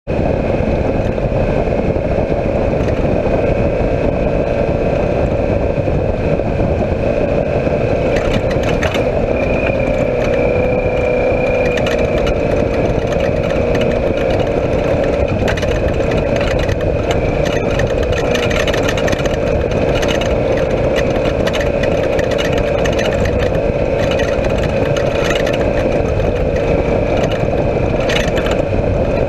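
Off-road race vehicle's engine running steadily at speed, heard from inside the cockpit. Knocks and rattles from the chassis join in from about eight seconds in.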